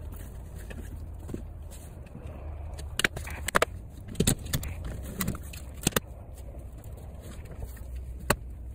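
Clicks and knocks from a 2018 Dodge Grand Caravan's stowaway seat and floor-bin lid being handled. A cluster of sharp clicks starts about three seconds in and runs for about three seconds, and one more comes near the end, over a low steady rumble.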